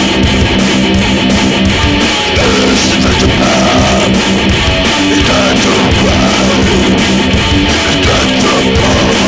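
Rock music soundtrack: strummed guitar chords over a steady drum beat, with a gliding melodic line in the middle.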